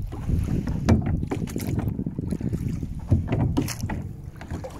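A small plastic rowing boat being rowed, with a few sharp knocks from the oars and hull as the strokes go, over a low rumble of wind on the microphone.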